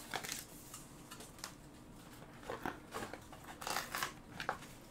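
Packaging of a small wax warmer being opened by hand: scattered soft clicks and rustles, with a denser stretch of rustling about three and a half seconds in.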